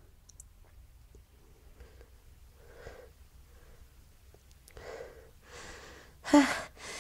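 A woman in a fit of repeated sneezing: a few faint, breathy intakes of breath, then one sharp sneeze near the end.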